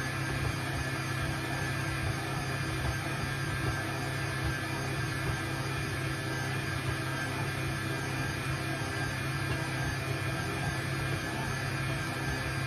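Electric stand mixer running steadily with its dough hook kneading wet focaccia dough in a stainless steel bowl: a constant motor hum with no change in speed.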